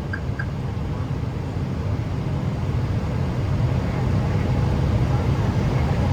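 Airbus A321 on approach: a steady low rumble of engines and airflow that slowly grows a little louder, with three short high beeps right at the start.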